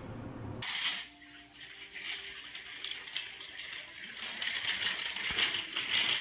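Toy stroller rattling and clicking as it is pushed across a tile floor, starting just over half a second in: a rapid, uneven clatter of small hard knocks.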